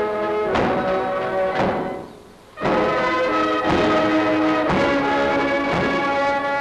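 Brass band music with a heavy drum beat about once a second. It drops away briefly about two seconds in, then picks up again.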